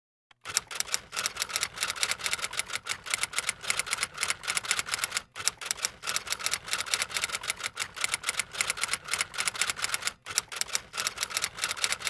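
Typewriter sound effect: a rapid, even run of key clacks, many a second, pausing briefly twice, in step with on-screen text typing out letter by letter.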